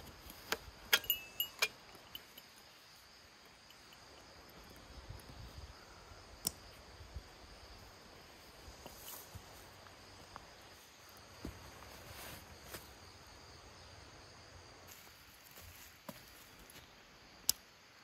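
A backpack being hung on a tree and handled: scattered sharp clicks and clinks of metal hardware and buckles, a few with a short metallic ring, the loudest cluster about a second in. Straps and fabric rustle between the clicks, over faint steady forest ambience.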